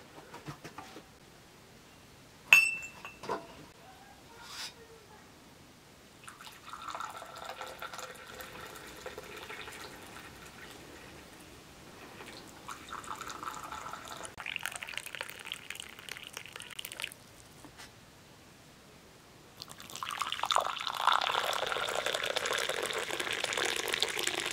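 Tea poured from a teapot into small porcelain cups, three separate pours, the last one the loudest. A single sharp clink about two and a half seconds in.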